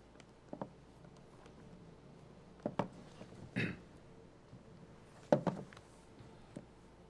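A few soft, scattered knocks and a brief rustle of a Bible's pages being turned and handled on a wooden pulpit, over faint room hiss. The loudest knock comes a little after five seconds in.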